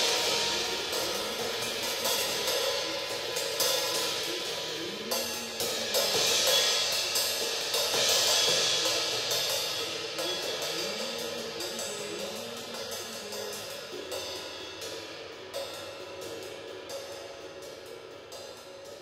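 Live band music: a drum kit's cymbals and hi-hat playing busily over a held electric guitar line, the whole mix fading gradually away.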